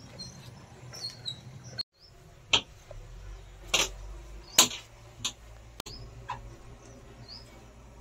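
Wet window glass on a JCB 3DX backhoe loader cab squeaking under a hand wipe: five short, sharp squeaks about a second apart, the loudest in the middle. Birds chirp faintly in the background.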